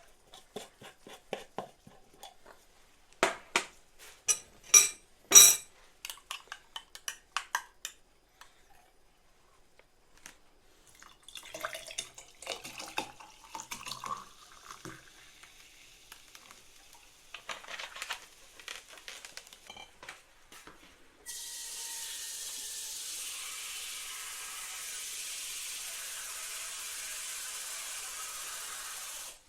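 Kitchen sounds: sharp clicks and knocks of dishes and jars, loudest a few seconds in, then pouring with a pitch that rises as the container fills. From about two-thirds of the way in, a steady rush of running water starts abruptly and cuts off at the end.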